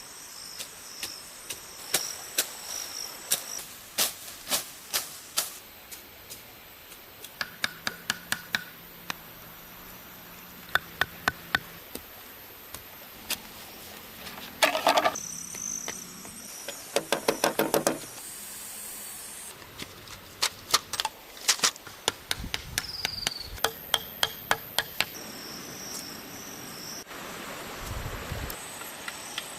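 A tool striking bamboo again and again in runs of sharp knocks, several quick strokes at a time, with birds chirping and insects trilling around it.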